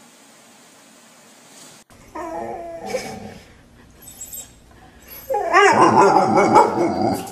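A dog whining and yowling in drawn-out, wavering cries: a short bout about two seconds in, then a longer, louder one from about five seconds in until just before the end.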